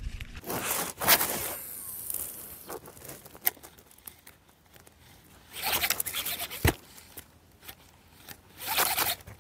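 Fishing line zipping off a reel in short rasping bursts as the lure is cast, three times. The first burst trails off in a falling hiss as the spool slows. A single sharp knock comes between the second and third bursts.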